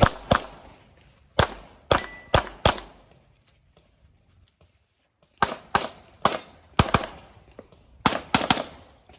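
Handgun shots fired in quick pairs, about a dozen in all, with a pause of a couple of seconds midway.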